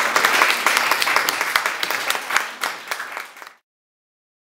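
A small group of people applauding, the clapping thinning out and then cutting off suddenly about three and a half seconds in.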